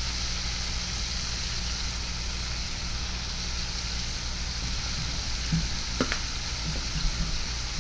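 White bass fillets frying in a skillet of canola and olive oil, a steady sizzle, with a few small pops and ticks in the last couple of seconds.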